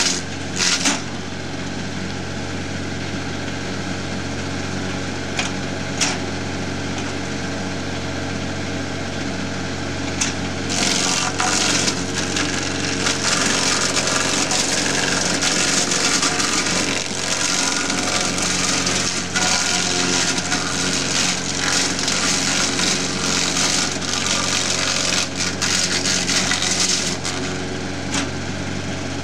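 Tractor-powered Neuhauser peeler-pointer stripping bark from a log as it is fed through: a steady engine hum under the machine's rasping cutting, with a few sharp cracks in the first seconds. The cutting gets much louder and denser from about ten seconds in until shortly before the end.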